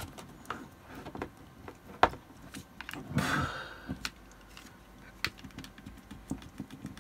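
Handling clicks and plastic scraping as spade connectors and their plastic housing are pulled off a sealed lead-acid battery's terminals. There is one sharp click about two seconds in, then a brief scraping rustle a second later.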